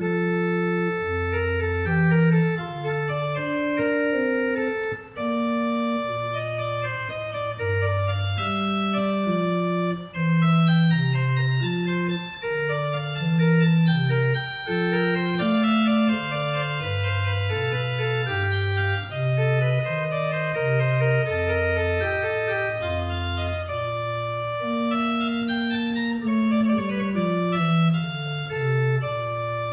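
1859 Thomas Robjohn pipe organ playing a piece: held chords over a bass line that steps from note to note.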